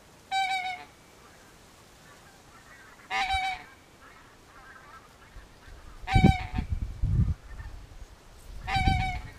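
Four single goose honks, each short, about three seconds apart. A low rumbling noise joins in for the last third and is as loud as the honks.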